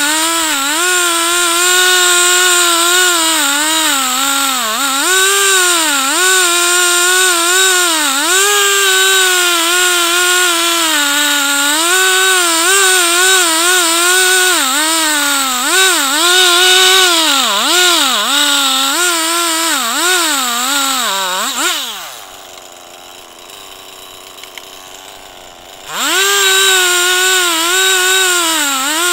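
Two-stroke Stihl chainsaw at full throttle, ripping a log lengthwise in a chainsaw mill. Its pitch dips again and again as the chain bogs under the load of the cut. A little before the 22-second mark the throttle is let off and the engine falls to a quieter idle for about four seconds, then revs back up to full speed.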